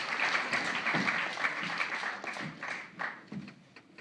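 Audience applauding a speaker onto the stage, the clapping dying away near the end.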